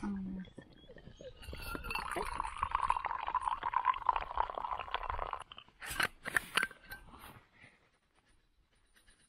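Liquid poured into a cup, a steady splashing gurgle lasting about three and a half seconds, then a few sharp clinks near the end.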